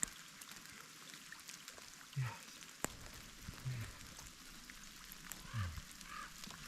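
A man's excited, shaky breathing after a successful shot: a few short, low, falling exhales with a breathy "yes", over a faint steady hiss of rain. One sharp click about three seconds in.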